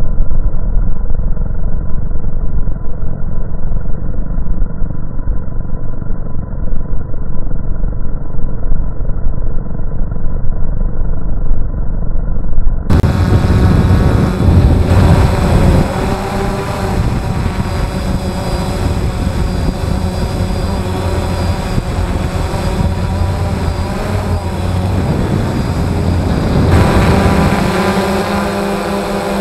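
Multirotor drone's electric motors and propellers running steadily, heard from the drone's own onboard camera. For about the first thirteen seconds the sound is muffled and dull. It then turns clear, a loud whine made of several steady tones over a low rush.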